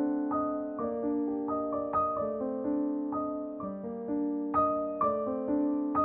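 Background music: a melody on a piano-like keyboard, with notes struck about twice a second over sustained lower notes.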